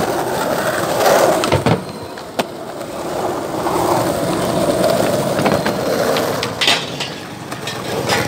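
Skateboard wheels rolling steadily on a paved street, with several sharp clacks of the board, one of them near the end as the skater goes onto a rail.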